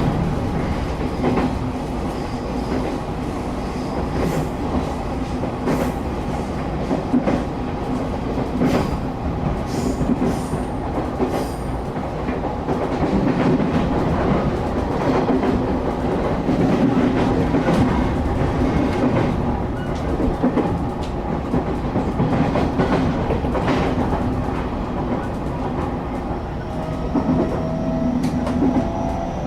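Interior of a moving passenger train: a steady rumble of the wheels and running gear, with sharp clicks now and then as the wheels pass rail joints. Near the end a faint whine rises in pitch.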